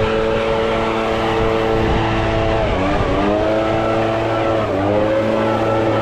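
A small petrol engine runs steadily, its pitch dipping briefly and coming back up about every two seconds.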